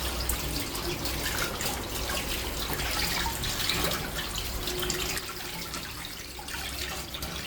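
Tap water running into a sink with splashing as an octopus is rinsed and cleaned under it; it eases off a little in the last couple of seconds.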